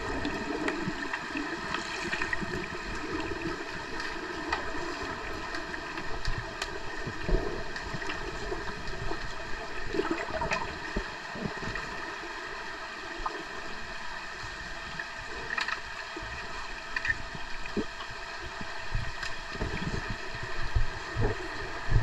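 Underwater pool ambience heard through a camera's waterproof housing: a steady, muffled hum of many fixed tones over a hiss. Faint scattered clicks and knocks come through it, with bubbly churning from a swimmer's fin kicks at the start.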